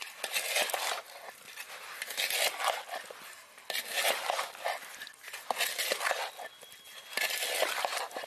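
A wooden spoon stirring spice-coated whole Indian gooseberries (amla) in a large metal bowl: wet, scraping strokes every second or so, with small clicks of the fruit against the bowl.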